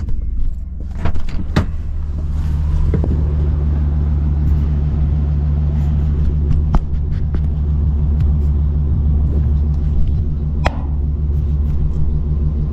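Vehicle engine running steadily at low speed while being backed up to hook on a gooseneck trailer, with a few sharp clicks and knocks.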